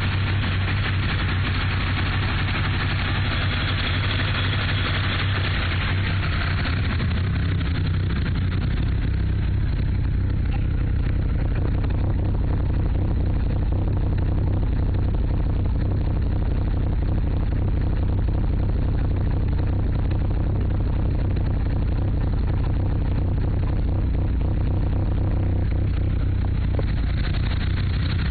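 Mitsubishi Lancer Evolution III's turbocharged 4G63 four-cylinder engine running at a rough idle, a rough running the owner suspects comes from bent valves.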